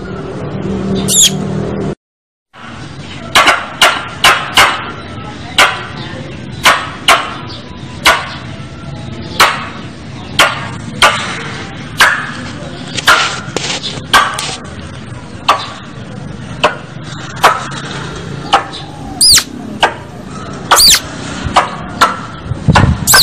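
Squirrel calling: a long run of short, sharp chips repeated about once or twice a second, with a few high whistles sliding down in pitch, two of them near the end. The sound cuts out briefly about two seconds in.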